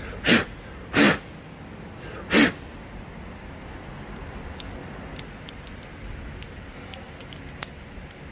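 Three short, loud blasts of compressed air from an air gun, blowing dirt out of an engine part's filter as it is cleaned, followed by a few faint clicks of parts being handled.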